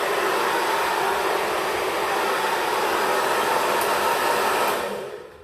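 Xtava Pro hair dryer with a diffuser attachment blowing steadily, then switched off near the end, its rushing air noise dying away.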